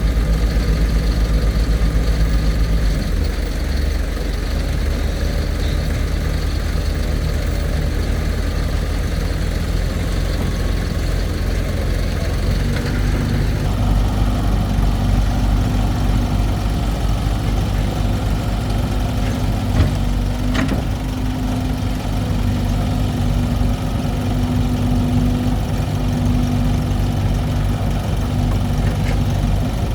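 Excavator engine running steadily, its note changing about three seconds in and again around thirteen seconds. There is one short sharp click about twenty seconds in.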